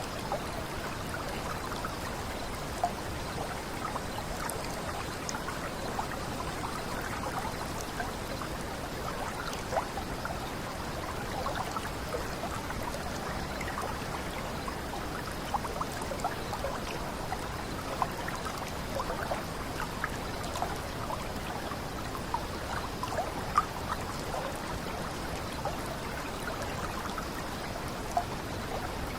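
A small water cascade flowing steadily, a continuous babble of bubbling and trickling with occasional sharper splashes.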